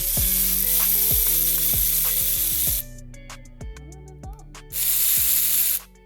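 A spray hissing in two long bursts, the first about three seconds long and the second about a second, over background music with a beat.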